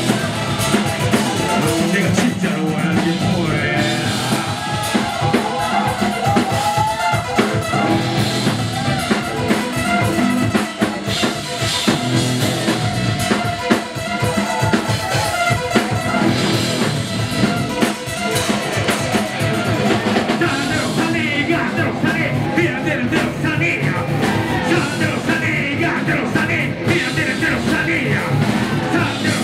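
Live rock band playing loudly: drum kit and electric guitars, with a singer's voice over them.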